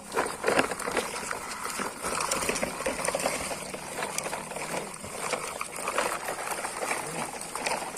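Water sloshing and trickling, with many small irregular clicks and knocks.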